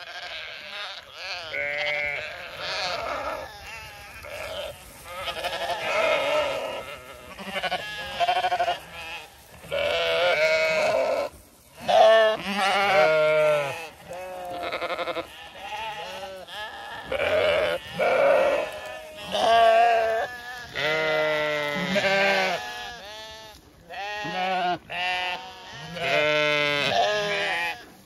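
A flock of Zwartbles sheep bleating, one call after another with short gaps and several voices overlapping, each bleat wavering in pitch. The sheep are crowding round the shepherd, calling for their feed.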